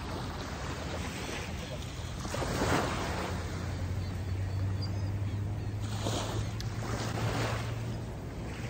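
Small waves breaking and washing up on a sandy shore, swelling about two and a half seconds in and again around six seconds, over a low steady hum in the second half.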